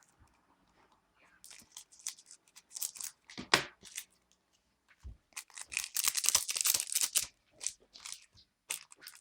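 Foil packet of football trading cards being torn open and crinkled: a series of short crackles with a sharp snap, and the longest, loudest stretch of tearing about six seconds in.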